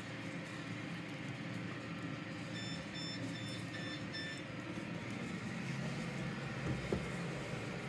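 A run of about five short electronic beeps, evenly spaced a little under half a second apart, over a steady low background rumble, with a short knock near the end.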